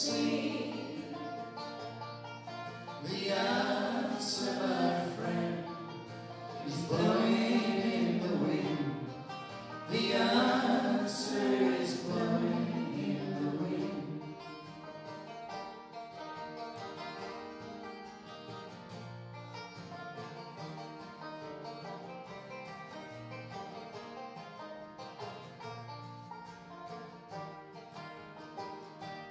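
Banjo and acoustic guitar accompanying voices singing a folk song; about fourteen seconds in the singing stops and the banjo and guitar play on alone, more softly.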